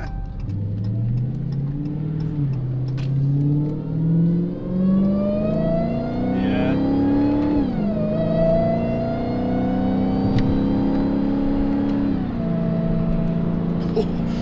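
Dodge Challenger SRT Hellcat's supercharged 6.2-litre HEMI V8 accelerating through the gears, heard from inside the cabin: engine pitch climbs in several steps with a dip at each upshift, the supercharger whine riding above it. It then holds a steady cruise before dropping as the throttle eases off near the end.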